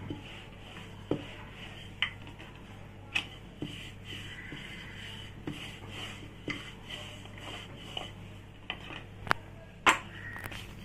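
Rolling pin knocking and clacking on the board as dough is rolled out into a thin sheet: irregular knocks about once a second, the loudest near the end.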